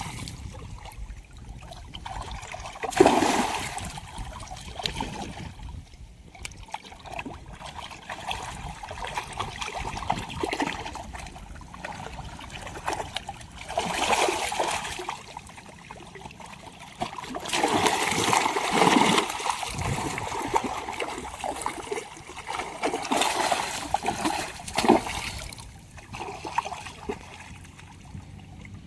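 Water splashing and trickling, with several louder bouts of splashing among steadier lapping and dripping.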